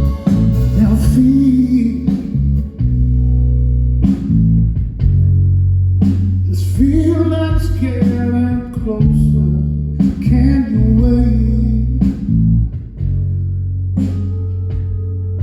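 Rock band playing live at a soundcheck: electric guitar melody lines over long held bass notes and drums, with no vocals.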